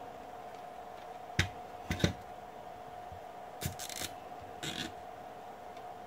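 Nylon cable tie being pulled tight around a metal TV wall mount bracket: two sharp clicks about a second and a half and two seconds in, then two short rasping zips as the tie's teeth ratchet through its head.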